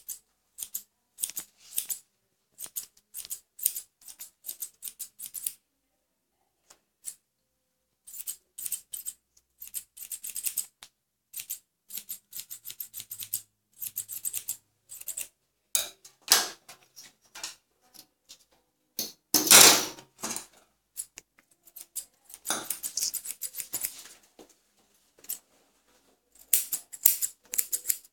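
Steel grooming scissors snipping through a schnauzer's leg hair in quick runs of short, crisp cuts, with pauses between runs. Near the middle comes one louder, fuller burst of noise.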